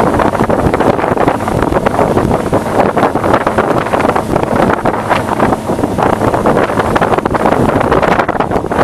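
Wind buffeting the microphone of a moving boat: a loud, steady, gusting rush.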